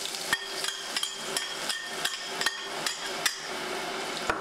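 A small ceramic bowl knocked again and again against the wok, about three sharp ringing knocks a second, as the chopped aromatics are shaken out into hot oil. A steady sizzle runs underneath.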